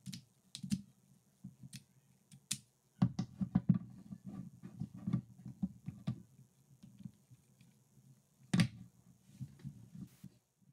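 Plywood puzzle pieces clicking and knocking together as three-piece wooden knot puzzles are handled and fitted, with a dense run of rapid knocks from about three seconds in and one loud knock later on.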